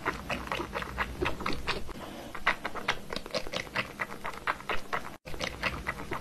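A ginger tabby cat drinking from a baby bottle's nipple: quick wet clicking smacks, about four or five a second, with a short break a little after five seconds.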